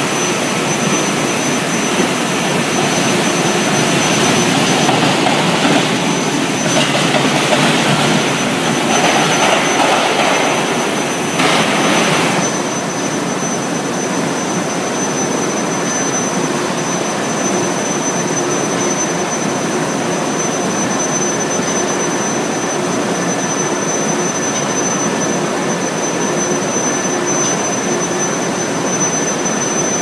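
Steady industrial machinery noise from a running induction billet-heating line, with a thin high whine held steady over it. The noise is louder and rougher for the first twelve seconds or so, then settles.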